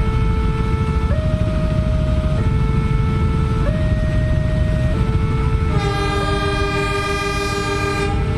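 Level-crossing warning alarm sounding its two electronic tones in turn, each held a little over a second, over a steady low rumble. About six seconds in, the approaching diesel locomotive sounds one long horn blast of about two and a half seconds.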